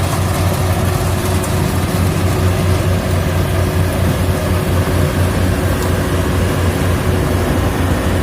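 Yanmar AW70 combine harvester's diesel engine and machinery running steadily, a constant low drone.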